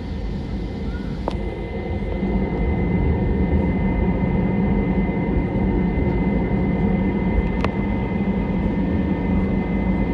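Airbus A321's IAE V2500 jet engines running, a steady low rumble with a thin high whine, growing louder about two seconds in and then holding steady.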